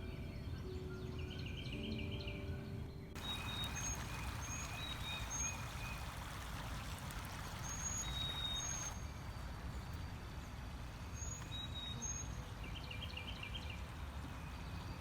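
Steady rush of a stream with birds calling over it in short high chirps and quick trills; the background changes abruptly twice, at about three and nine seconds in.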